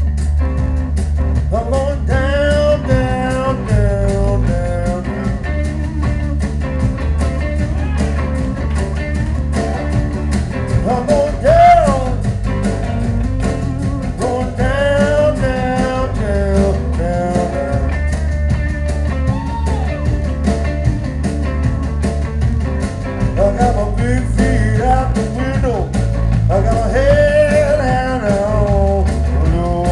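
Live blues-rock trio playing: electric bass, drum kit and a Stratocaster-style electric guitar, with a lead line that bends and wavers in pitch over a steady low groove.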